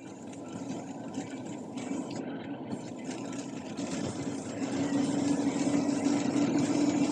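Noise inside a car on the move, a steady hum under a rushing hiss, growing steadily louder.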